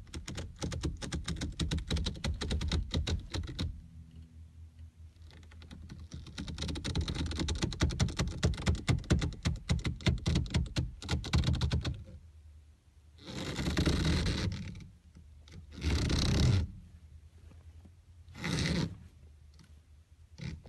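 Rubber or elastic being stretched, creaking as a rapid run of tiny clicks in two long stretches, then three shorter scratchy bursts.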